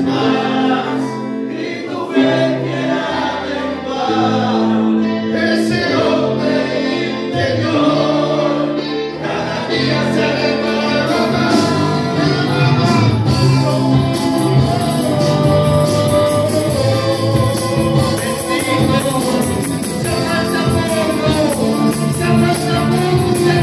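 Worship band and congregation singing a hymn in Spanish, accompanied by acoustic guitars and a keyboard. A tambourine comes in about halfway through.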